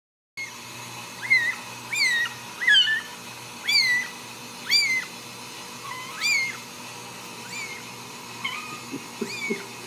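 A newborn Ragdoll kitten mewing for its mother: about ten short, high-pitched cries, each rising and then falling, roughly a second apart and fainter in the second half.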